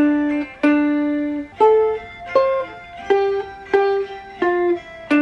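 Ukulele picked one note at a time: a beginner playing a slow single-note practice melody, about eight plucked notes, each ringing out and fading before the next.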